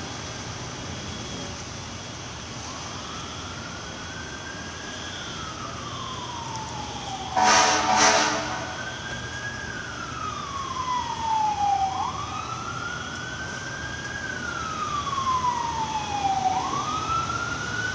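Emergency vehicle siren wailing, its pitch rising quickly and falling slowly, repeating about every four to five seconds. Two short, loud horn blasts cut in about seven and a half seconds in.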